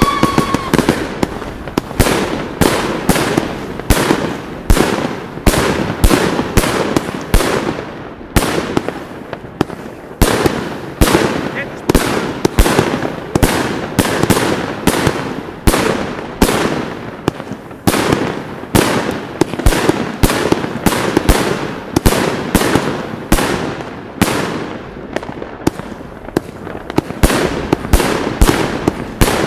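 A fireworks battery firing shot after shot: a steady run of sharp bangs, about two or three a second, with crackling between them.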